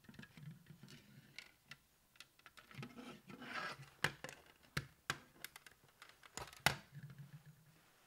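Plastic clicks and scraping as a hand works the cover off a battery smoke alarm and unclips its 9-volt battery, with a rasping scrape about three and a half seconds in and several sharp snaps between about four and seven seconds in.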